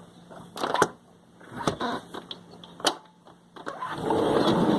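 A few sharp clicks and knocks, then from just under four seconds in a loud, even rushing din from a large flock of common grackles in the yard.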